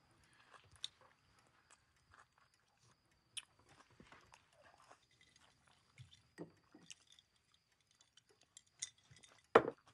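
Quiet chewing with scattered small clinks and scrapes of cutlery on plates, and a louder knock near the end.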